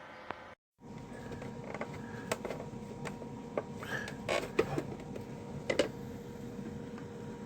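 Small electric dehumidifier running with a steady hum, over which come scattered clicks, creaks and knocks of the unit or its parts being handled. The knocks are loudest about four to six seconds in.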